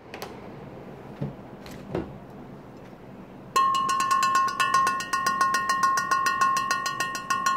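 A fast, even run of bright ringing strikes, about seven a second, each with the same clear high tone, starting about three and a half seconds in. A few faint knocks come before it.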